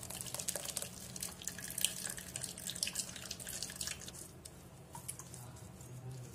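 Blended pomegranate juice pouring through a stainless steel mesh strainer and dripping into a steel bowl: a run of small splashes and drips that thins out after about four seconds.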